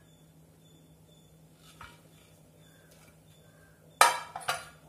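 Quiet room tone for about four seconds, then a loud clatter of sharp metallic clinks on the opened pressure cooker.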